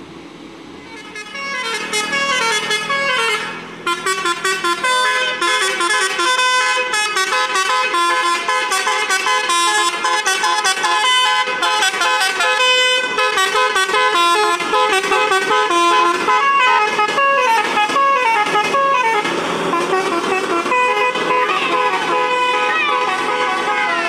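Telolet horn on an Indonesian tour coach playing a fast tune of quickly changing notes as the coach passes. It starts about a second in and runs on with a short break near four seconds.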